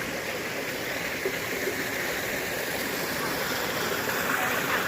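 Creek water rushing over rocks, a steady rush that grows slightly louder.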